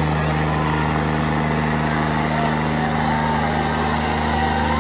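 Diesel engines of John Deere 5310 tractors running steadily under load, held at a constant speed as the tractors pull against each other in a tochan tug-of-war.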